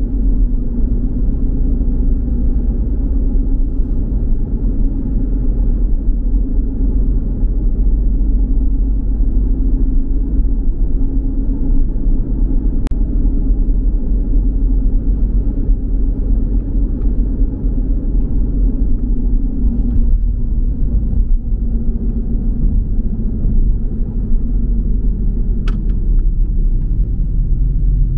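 A car driving at speed, with a steady low rumble of road and engine noise.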